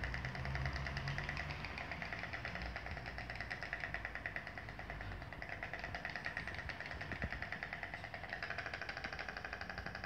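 White storks clattering their bills in a rapid, continuous rattle during a fight over the nest.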